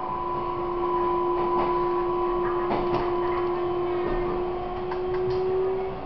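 Running sound heard inside a Taiwan Railways EMU700 electric multiple unit: the traction motors give a steady whine that rises slightly in pitch over a rumble of wheels on rail, with a few short clicks.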